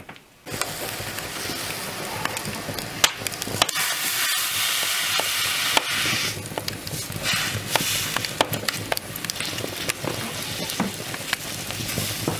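Open wood fire crackling on a hearth: sharp irregular pops over a steady hiss, starting about half a second in.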